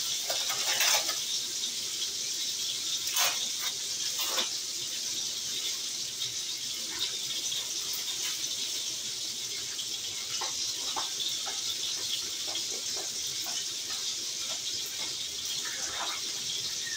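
Food frying in a skillet on the stove: a steady sizzle with scattered pops and crackles.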